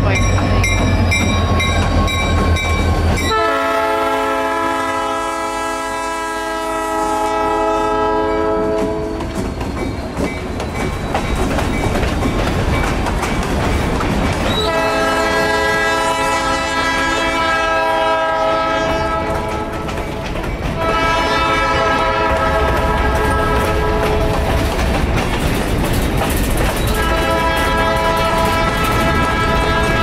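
CN freight train passing close by. Its diesel locomotives rumble past, then the lead unit's multi-chime air horn sounds four blasts: two long, a shorter one, and another long one, the pattern of a grade-crossing signal. Under the horn, the freight cars' wheels rattle and clack over the rail joints.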